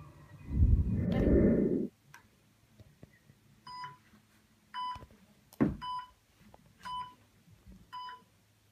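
Heart monitor beeping, a short high beep about once a second, starting about three and a half seconds in. Before the beeps, a loud burst of rough noise lasts a little over a second near the start, and a sharp click comes midway through.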